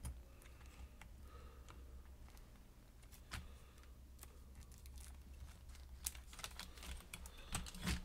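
Light, scattered clicks and taps of hands handling a laptop motherboard and its plastic-and-metal chassis, sparse at first, then a quick run of clicks in the last two seconds, the loudest just before the end.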